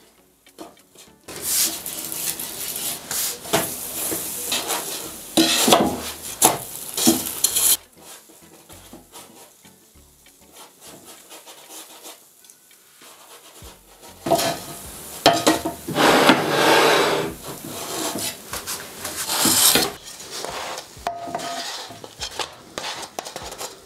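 Wooden spatula scraping and turning gözleme flatbread on a hot, oiled griddle pan, with the dough sizzling. Two long spells of scraping and sizzling, the second starting about halfway through, with a quieter stretch between.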